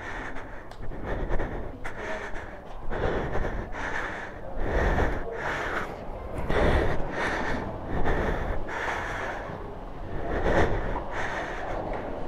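A person breathing hard close to the microphone, in repeated noisy breaths about one every one and a half to two seconds.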